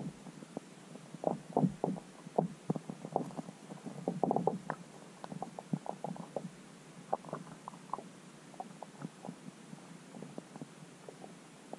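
Irregular muffled knocks and pops, several a second, as heard underwater through an ice-fishing camera's microphone, over a faint steady hiss.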